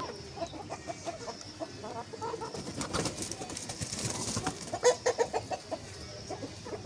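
Chickens clucking in many short, repeated notes, with a brief rustling noise about three seconds in and a few louder clucks around five seconds in.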